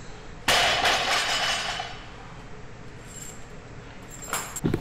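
A loaded barbell is dropped onto the lifting platform after a deadlift. The plates crash and clang all at once, about half a second in, and ring on for a second or so.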